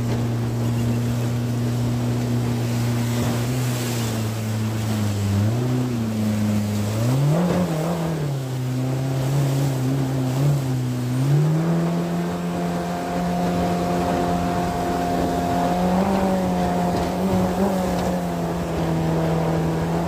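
Outboard jet motor driving a jon boat upriver. It runs steadily, its pitch dips and wavers about midway through as the throttle changes, then rises and holds at a higher speed for the rest of the run.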